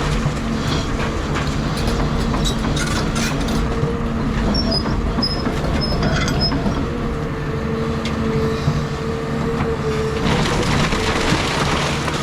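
Caterpillar 323 hydraulic excavator running steadily under load during demolition, its pitched hum wavering. Scattered cracks and clatter of breaking wood and debris sound over it.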